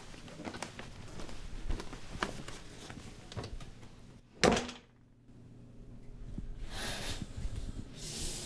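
Footsteps on a wooden floor, about one every half second. About four and a half seconds in, a door shuts with a single loud thump, followed near the end by a few seconds of steady hiss.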